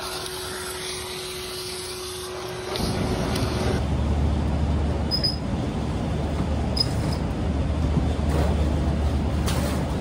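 A wet/dry vacuum runs with a steady hum and hiss as its hose sucks at a corroded drain pan, for the first three seconds or so. After it comes a steady low rumble with a few sharp clicks.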